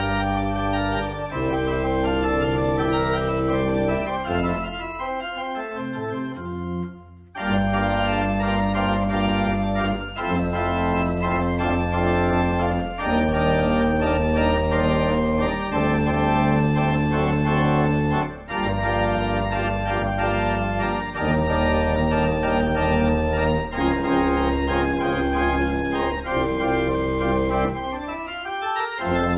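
Organ music: held chords over deep bass notes, with a brief break about seven seconds in.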